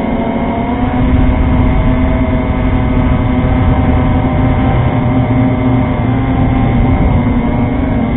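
Multirotor drone's electric motors and propellers running in flight, recorded by the onboard camera: a steady buzzing whine made of several tones that drift slightly in pitch, over a rough low rumble.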